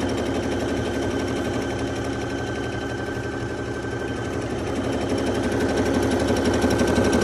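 Brother F420 computerised sewing machine running on its own, stitching an automatic one-step buttonhole: a rapid, steady needle rattle, a little louder near the end.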